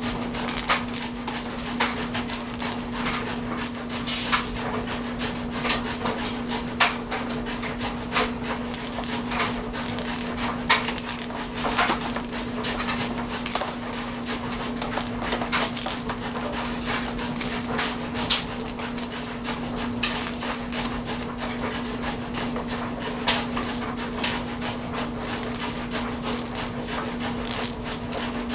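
Power drill running steadily as it drives a copper wire stripper, with a continuous hum and irregular crackles and ticks as the wire is pulled through the blade.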